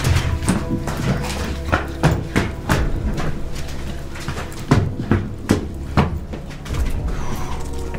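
Hurried running footsteps, hard uneven thuds on concrete stairs, mixed with knocks and rustle from a handheld camera being jostled.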